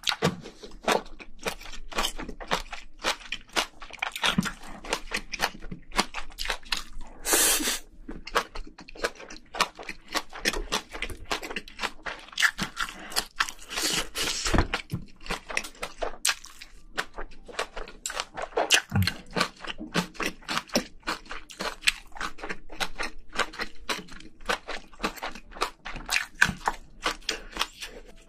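Close-miked chewing of spicy braised seafood and noodles: a dense run of wet smacking and crunchy bites.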